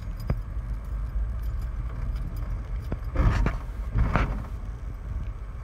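Car cabin while driving slowly over rough, cracked concrete: low road rumble with small clicks and rattles from the car. Twice, about three and four seconds in, louder rattling bumps as the car lurches over the uneven surface.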